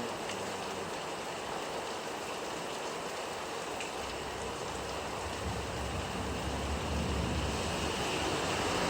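Steady rain falling, an even hiss. About halfway through, a low rumble joins it and the sound grows a little louder.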